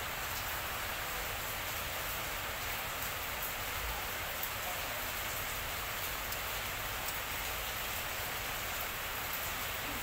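Steady rushing noise with a low rumble underneath and faint scattered ticks.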